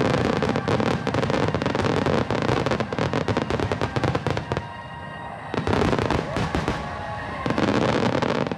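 Aerial fireworks going off in a dense barrage: many rapid crackling pops for the first four and a half seconds, then a brief lull and two more loud rounds of bursts.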